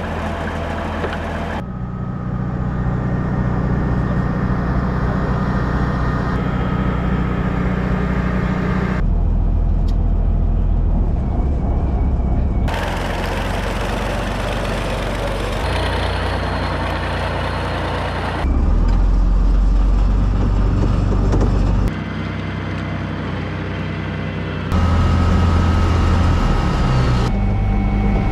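Tor-M2 tracked air-defence vehicle's engine running as it moves over mud, a steady low rumble with a steady hum. The sound jumps abruptly in level and tone several times, and near the end it is heard from inside the driver's cab.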